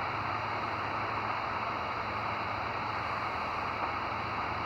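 Steady shortwave static from a Grundig G5 receiver tuned to the 20-metre amateur band: an even hiss of band noise with no signal on the frequency.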